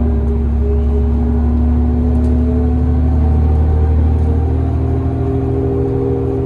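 Inside a 2003 New Flyer city bus under way: the diesel engine and drivetrain run with a deep, steady rumble and hum as the bus cruises.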